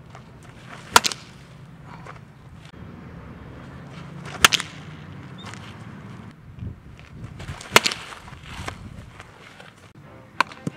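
Baseball bat hitting the ball in batting practice: three sharp cracks about three seconds apart, then a lighter smack near the end.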